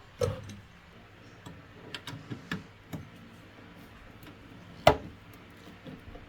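Irregular sharp taps and knocks of hand tools at work on the rice mill. One comes a quarter second in, a few around two to three seconds, and the loudest about five seconds in.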